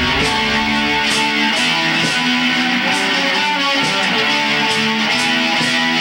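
Electric guitars playing a repeating heavy-metal riff in a live band jam, with sharp high strikes about twice a second, heard through a camcorder's microphone.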